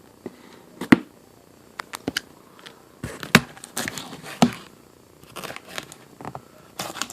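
Subwoofer shipping box being opened and its packing handled: scattered knocks and clicks with bursts of rustling and scraping, busiest from about three seconds in.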